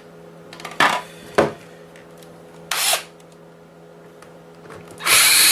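Plastic panels of a PlayStation 4 console's shell being handled and slid apart: two sharp knocks about a second in, a short scrape midway, then a louder, longer scrape near the end. A steady low hum runs underneath.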